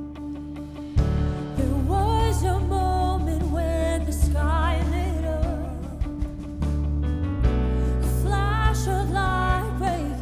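Worship music: a quiet sustained keyboard, then about a second in a full band with heavy bass comes in under a wavering, wordless vocal line.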